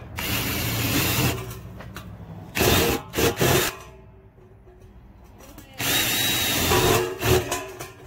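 Cordless drill boring a pilot hole through a thin steel garbage-can lid. It runs in three spells with short pauses between.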